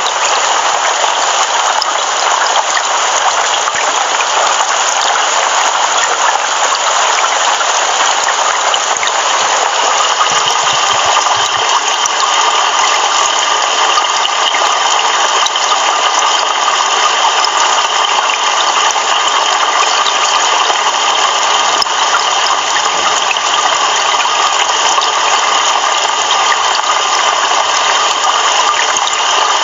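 Heavy rain pouring, a steady dense hiss.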